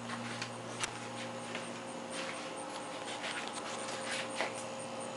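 Westclox Model 26395 electric wall clock's synchronous motor humming steadily, with a few faint irregular clicks.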